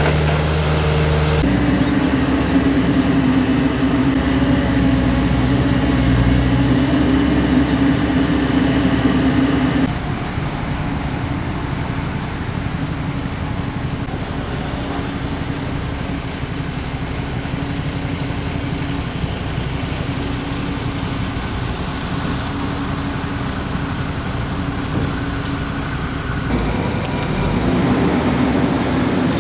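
Diesel engines of earthmoving machines running steadily: a Hitachi mini excavator, then an Atlas 1505 M wheeled excavator working, and near the end a Fendt tractor pulling a dump trailer. The engine hum changes about 1.5 s in, drops in level about 10 s in, and grows louder again near the end.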